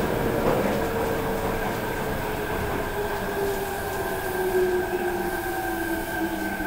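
Osaka Municipal Subway 66 series train's Mitsubishi IGBT VVVF inverter and traction motors whining in several tones that fall steadily in pitch as the train slows under braking, over rumbling wheel and rail noise.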